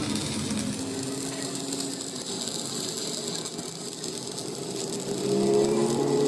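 Stick (shielded metal arc) welding arc crackling and hissing steadily as a bead is run along a steel truck front axle beam. A louder low hum joins in about five seconds in.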